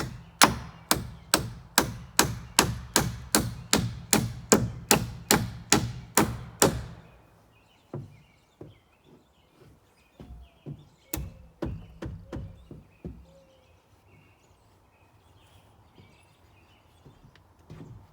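Hammer blows on wood framing, a fast even run of about three strikes a second for roughly seven seconds, then a few scattered, lighter knocks.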